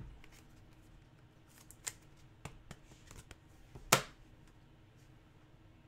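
Trading cards and their packaging being handled on a wooden desk: a scattering of light clicks and taps, the sharpest about four seconds in.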